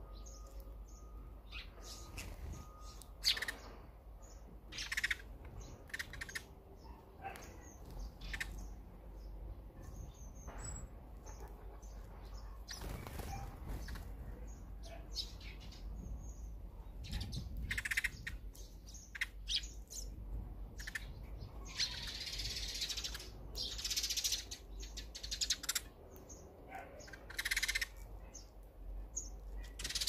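Eurasian tree sparrows chirping at a seed feeder: short, separate high chirps scattered throughout, coming thicker and busier in the last third.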